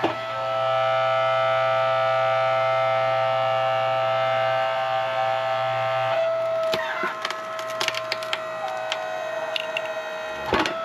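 Hydraulic log splitter's motor and pump whining steadily, straining under load for several seconds. About six seconds in, a knotty, twisted-grain log starts cracking and splintering with a run of sharp snaps as it gives way, and there is a loud knock near the end.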